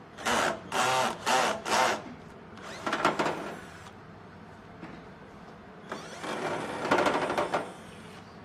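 Cordless electric screwdriver whirring in short bursts as it drives screws out of a metal case: four quick runs in the first two seconds, another around three seconds in, then a longer run near the end.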